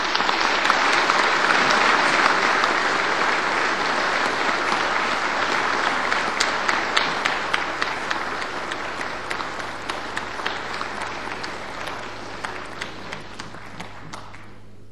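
Audience applauding, loudest in the first few seconds, then slowly dying away into scattered separate claps before it stops just before the end.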